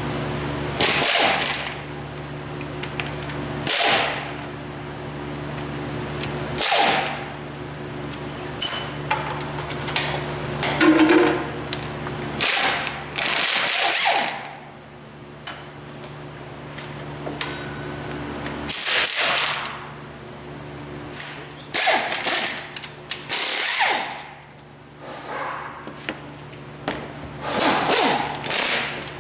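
Pneumatic ratchet spinning bolts loose in short bursts, a dozen or so, over a steady low hum.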